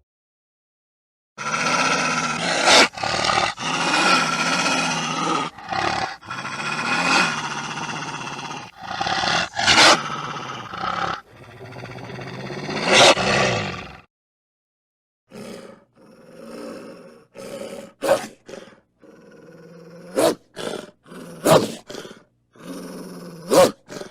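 Wolf growling: a long, continuous rough growl with several sharper, louder snarls. After a short pause it gives way to a series of short, sharp snarling bursts.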